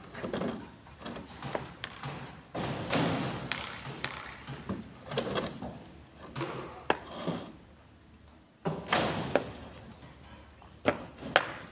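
Irregular knocks and thumps from manual tool work at the base of a post, with a few sharp cracks near the end.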